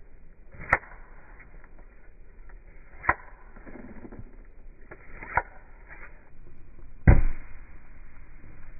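Three short, sharp knocks about two seconds apart as a small knife cuts mushrooms on paving stones. Then, near the end, a louder, heavier thud as a wooden-handled tool smashes a mushroom in the grass.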